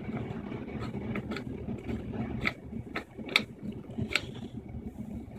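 Craftsman air compressor running steadily as it pumps up its tank, with a few sharp clicks and ticks in the middle stretch.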